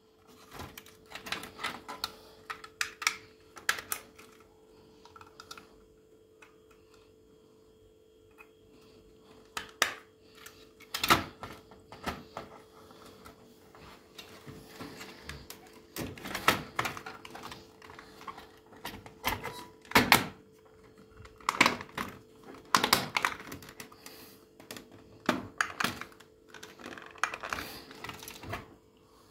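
Irregular clicks and knocks of hard parts being handled and fitted, in scattered clusters with a quieter stretch early on, over a faint steady hum.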